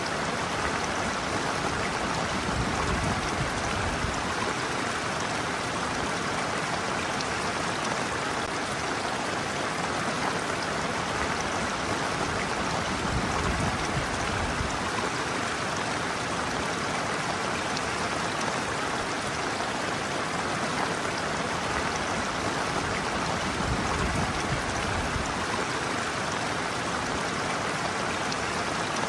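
Shallow stream water running and splashing steadily over and around a person's feet. A low rumble swells up briefly about every ten seconds.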